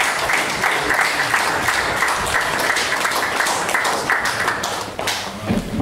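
Audience applauding, many hands clapping together; the applause dies away about five seconds in.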